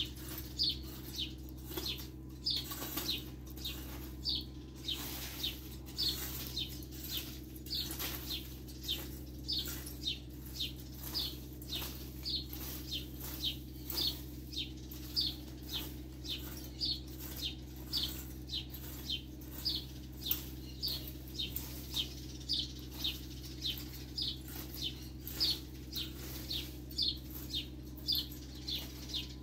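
Garden rake scraped over bare, dry dirt in a steady rhythm of short strokes, a little under two a second.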